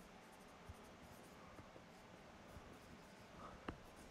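Dry-erase marker writing on a whiteboard: faint, scratchy strokes, with one sharp tick of the marker near the end.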